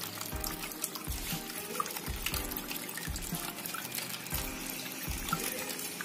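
Water trickling and splashing from the spout of a clay pot into the clay pot below, on a small cement tabletop waterfall fountain. Background music with a steady beat plays over it.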